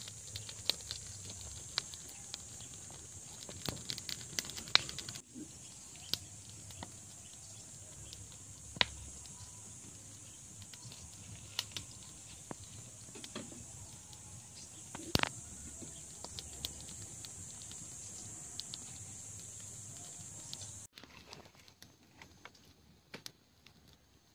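Dry-twig campfire crackling, with sharp irregular snaps and pops over a steady high hiss; near the end the hiss drops out and the crackle goes quieter.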